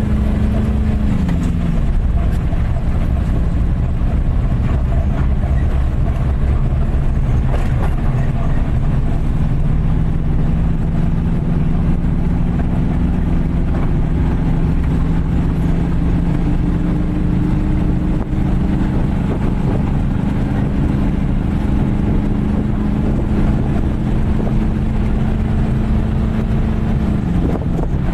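A vehicle's engine running steadily under way, heard from inside the cab with road noise. Its hum drops in pitch about a second in and again near the end.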